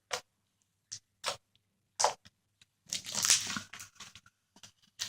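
Homemade glue-and-borax slime crackling and popping as it is squeezed and stretched in the hands: scattered sharp clicks, then a denser burst of crackles a little past halfway.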